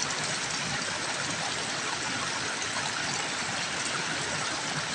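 Steady rushing of a shallow creek flowing over rocks.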